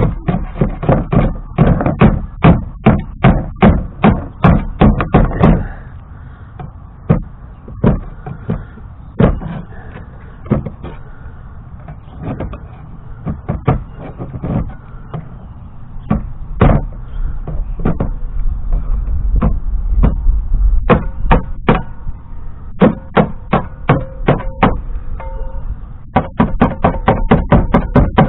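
Repeated sharp knocks and taps: a quick, even run of about three a second for several seconds, then scattered single knocks, then quick runs again near the end.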